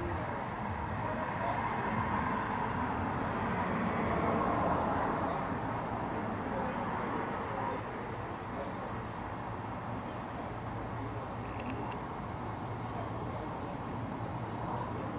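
A steady, high-pitched insect trill, finely pulsed, over a low, even background rumble.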